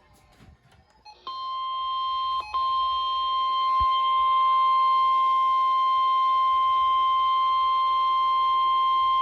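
NOAA Weather Radio warning alarm tone: a single steady high-pitched 1050 Hz tone that starts about a second in and holds with only a brief dropout, signalling that a warning is about to be read.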